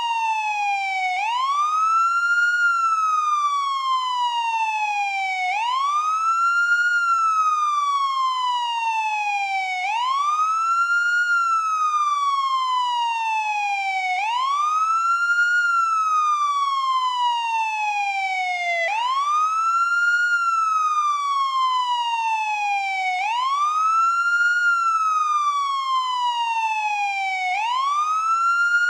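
American police car siren on wail: one tone that climbs quickly, then slides slowly back down, the cycle repeating about every four and a half seconds.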